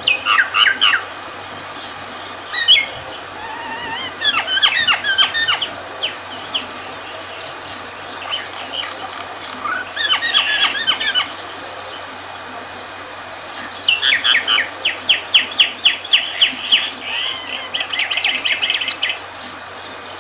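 Myna calling in several separate bursts of quick chattering, whistled notes. Late on comes a longer run of rapid repeated notes, about four a second, over a faint steady hiss.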